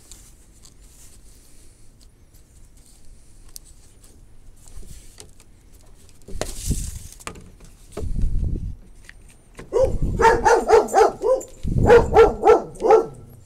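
A dog barking in two quick runs of short, sharp barks, about ten seconds in and again near the end. A couple of dull thuds and rustles come before them.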